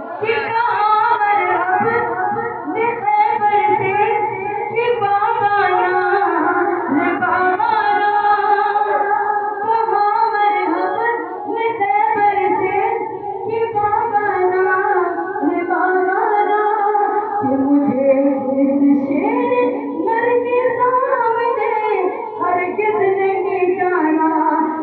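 A female voice singing a devotional song.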